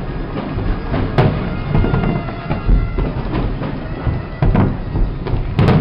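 Fireworks display: sharp bangs of shells bursting, the loudest about a second in and near the end, over a continuous noisy din with faint steady droning tones underneath.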